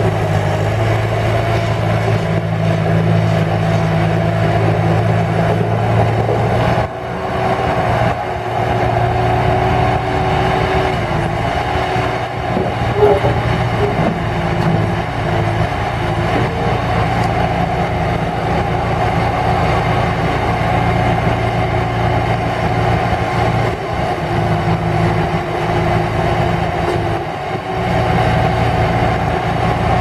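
Bobcat 873F skid steer's Kubota four-cylinder turbo diesel running continuously, with a steady whine over the engine note. The level dips briefly about seven seconds in and again near the end, and the engine's note shifts a few times.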